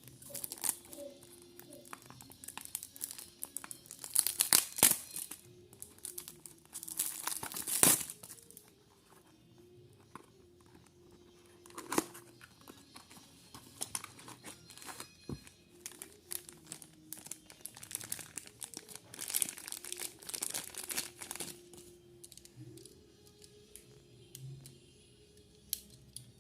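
Toy-car packaging being handled, crinkling and torn open in irregular bursts, loudest in two spells in the first eight seconds and again past the middle.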